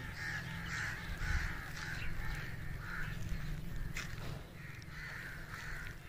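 Crows cawing over and over, harsh calls coming about one or two a second, with a steady low rumble underneath.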